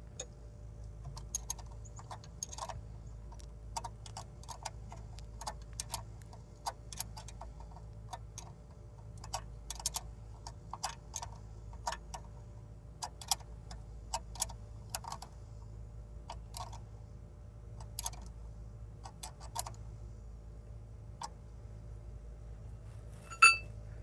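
Irregular light metallic clicks and ticks of a hand tool working the starter's wiring terminals, about one every half second to a second, with a single ringing metal clink near the end.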